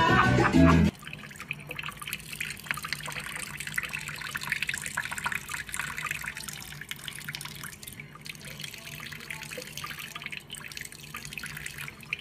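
Salsa music cuts off about a second in. After it, a thin stream from a kitchen faucet runs steadily, splashing and dripping with small irregular splatters as it falls onto a cat's head and into the sink.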